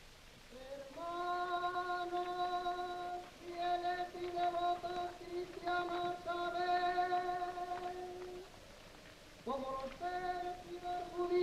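Wordless singing on the soundtrack, holding long steady notes in a chant-like line. It slides up into a note about a second in. It pauses briefly twice and comes back near the end with another upward slide.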